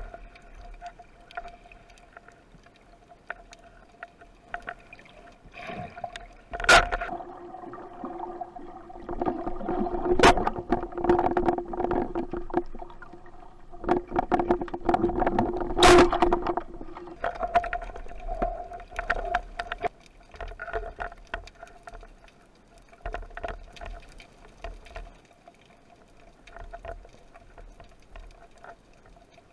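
Underwater sound picked up by a speargun-mounted camera: water movement and a steady fine crackle, with three sharp knocks spread through the middle. A low hum comes in for several seconds among the knocks, then fades.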